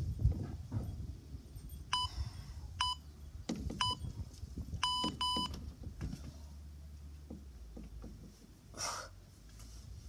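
Five short electronic beeps at one steady pitch, spread over about three and a half seconds and starting about two seconds in, the last two close together.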